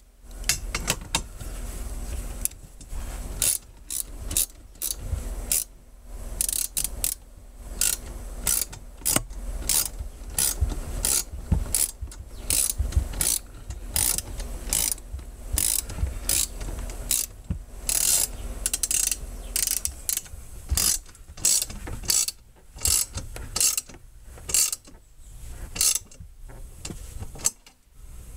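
Hand ratchet wrench clicking in repeated strokes as bolts are tightened to fit a strut-style brace to the car body, in bursts with short pauses between.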